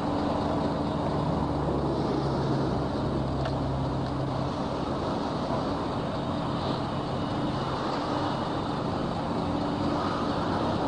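Large engine running steadily with a low hum and a broad hiss, typical of a mobile crane's diesel engine holding a load.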